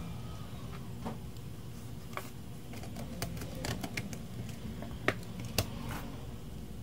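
Irregular light clicks and taps of small tools being handled during electronics bench work, bunched mostly in the second half, over a steady low hum.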